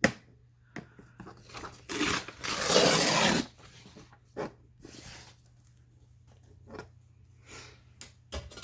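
Paper rustling as craft materials are handled: one loud rustle about two seconds in that lasts about a second and a half, with scattered small clicks and knocks of items set down on the desk.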